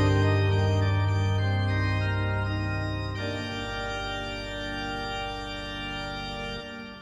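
Background music ending: a final chord, held steadily, that slowly fades and drops away near the end.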